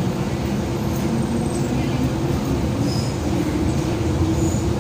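MTR M-train (Metro Cammell metro train) running along the platform behind the platform screen doors: a steady rumble of wheels and running gear with a constant hum.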